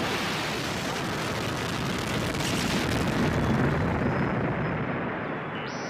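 Harsh distorted noise from a Eurorack modular synthesizer patch: crossmodulated filters feeding back into a Big Muff fuzz with stereo delay. A dense wall of noise that swells a little past the middle and eases toward the end.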